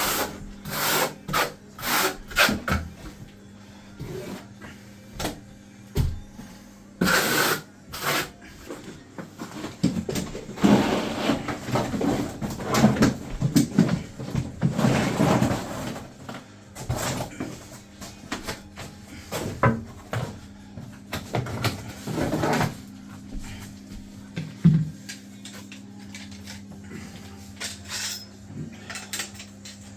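Hand work on a bathroom floor as uncoupling matting is laid into tile adhesive: repeated scraping and rubbing strokes, thickest in a dense stretch in the middle and sparser toward the end, over a steady low hum.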